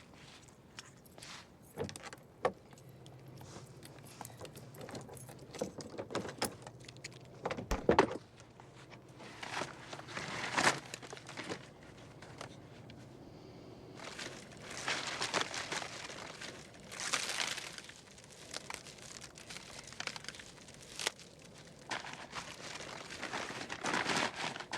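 Rustling and crinkling handling noises mixed with footsteps and scattered sharp clicks and knocks, in several longer swells of rustling.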